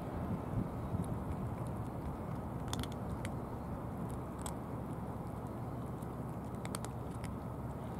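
Cats crunching dry kibble: a few short, sharp crunches in the middle and near the end, over steady low background noise.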